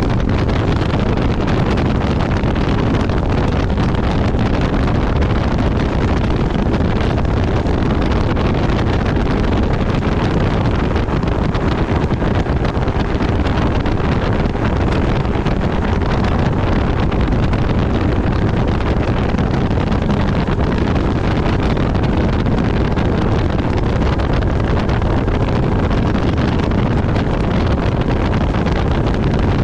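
Nitro Z19 bass boat under way at speed: a steady rush of wind on the microphone over the running outboard motor and the hull on the water.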